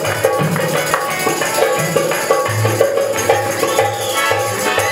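Live Rajasthani folk music: a dholak and other hand drums beating a brisk, regular rhythm with jingling percussion, over held, changing harmonium notes.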